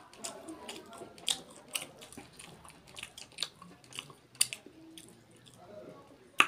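Close-miked eating of duck curry by hand: chewing with wet lip smacks and mouth clicks, irregular, a sharper click near the end.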